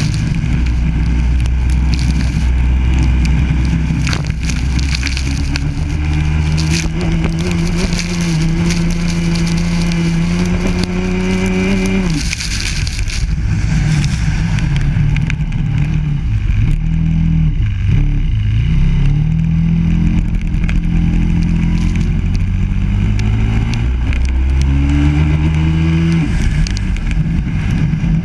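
Biland SA250 racing kart's four-stroke engine heard onboard. The revs climb steadily for several seconds, then fall away sharply about twelve seconds in, rise and fall unevenly for a while, climb again and drop sharply near the end.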